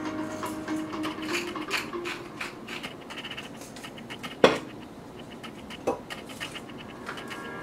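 Hand-twisted pepper grinder crunching in short scratchy bursts, then a sharp, loud knock as it is set down on the counter, and a lighter knock about a second and a half later.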